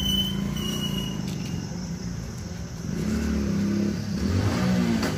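A motor vehicle's engine running, its pitch rising and falling in the second half.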